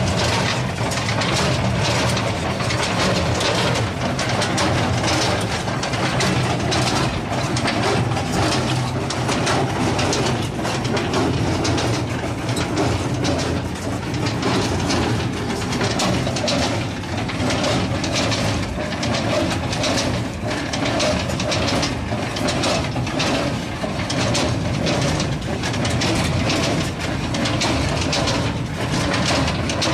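Star TNB1060 small square baler running empty, with a continuous rapid mechanical clatter over a steady engine drone.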